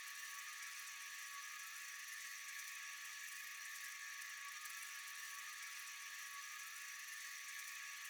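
Faint, steady night-time insect chorus: a dense high-pitched trilling and hissing that never lets up.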